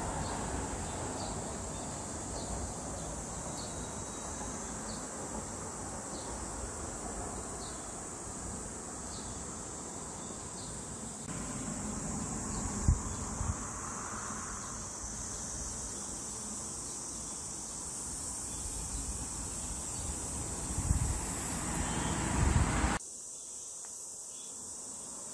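Steady high-pitched buzz of summer insects, with wind rumbling on the microphone under it. The wind gusts about halfway and more strongly near the end, then drops away suddenly.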